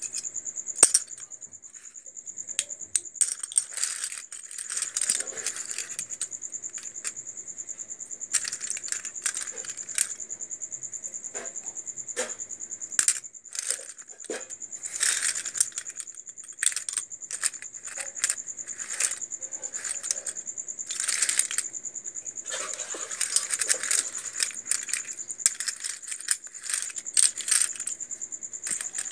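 Plastic Anchor switch and socket modules clicking and clattering against one another in irregular bursts as they are picked up and put down. Under them runs a steady high-pitched insect trill, like a cricket.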